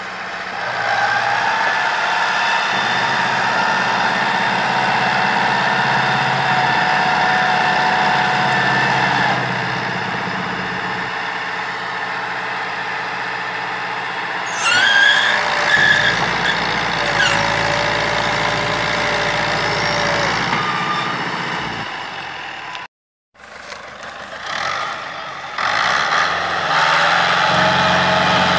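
Fiat 640 tractor's diesel engine running hard under load while pulling a heavily loaded sugarcane trolley through soft ground. A few short high-pitched chirps come about halfway through, and the sound cuts out briefly near the end before the engine comes back steady.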